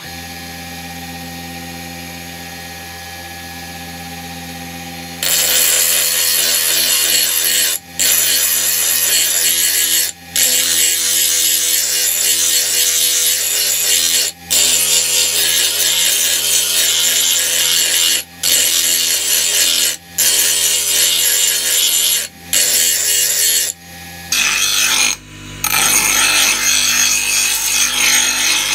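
Electric bench grinder: the motor first spins the wheel freely with a steady hum, then from about five seconds in a curved steel blade is pressed to the grinding wheel to sharpen it, a loud harsh grinding broken by short gaps every couple of seconds as the blade is lifted and set back. Near the end the grinding takes on a different tone on a second grinder.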